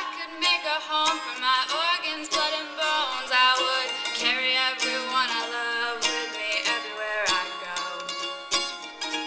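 A woman singing live, with a plucked string instrument accompanying her in a steady rhythm of plucks.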